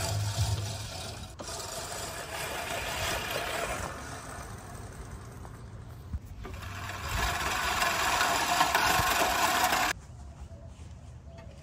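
Scotts 16-inch push reel mower cutting grass, its spinning reel whirring as it is pushed. The sound softens in the middle, swells again, then drops off suddenly about ten seconds in.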